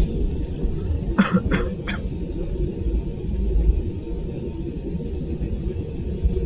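Steady low rumble of an airliner cabin heard from inside, around takeoff. A person coughs three times in quick succession about a second in.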